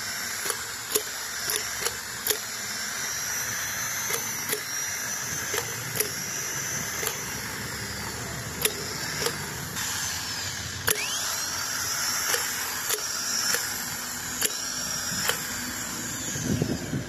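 Heavy-equipment starter motor spinning freely on a bench test, fed voltage directly. It gives a steady high-pitched electric whine with a light click every second or so. It runs well on its freshly cleaned armature and refitted carbon brushes.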